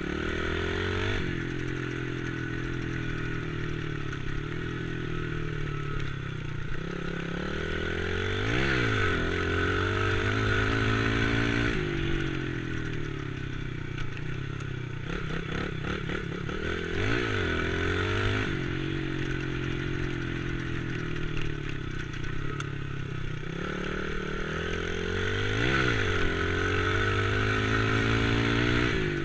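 Dirt bike engine running under the rider, its pitch climbing as the throttle opens and dropping back again and again, with the biggest swings near a third of the way in, about halfway, and near the end.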